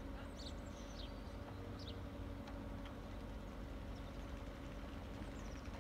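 Motorboat engine running slowly at low revs with a steady low hum, while small birds give short high chirps, several in the first two seconds and again near the end.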